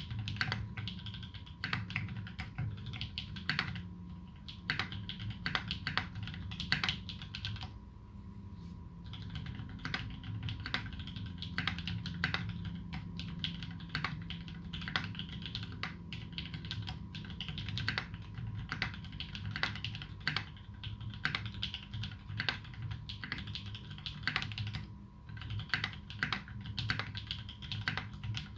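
Typing on a Duck Jetfire mechanical keyboard fitted with lubed Holy Panda tactile switches (clipped sliders) and GMK keycaps: a fast, uneven run of keystrokes with a few short pauses.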